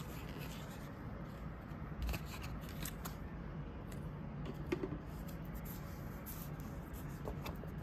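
Paper insert cards being handled and shuffled: light rustling with a few soft clicks, the clearest about two, three and nearly five seconds in.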